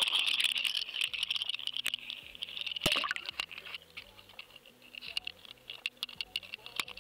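GoFish Cam underwater camera's own microphone as the cast carries it out and it plunges into the river: a hiss with rapid clicking, a sharp knock about three seconds in, then fainter crackling and ticking as it sinks.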